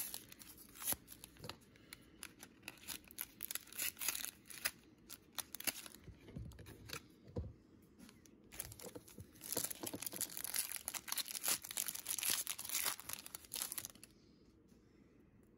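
Foil Pokémon TCG booster pack being torn open and crinkled by hand: irregular tearing, rustling and small clicks of the foil wrapper, thickest in the last third and dying down near the end.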